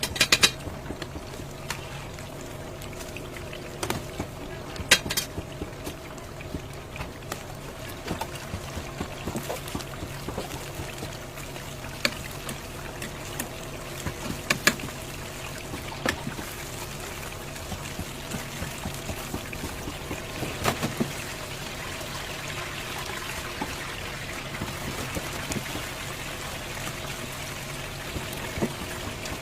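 Steady liquid sound in a food-preparation kitchen over a low machine hum, with scattered clicks and knocks of utensils; the sharpest knocks come at the very start and about five seconds in.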